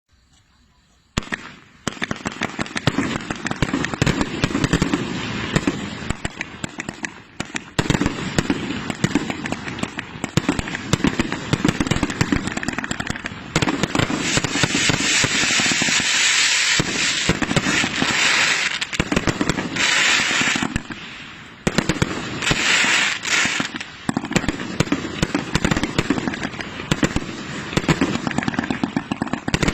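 A firework going off: a dense, rapid run of bangs and crackling starts about a second in and keeps going, with stretches of louder hissing crackle in the middle.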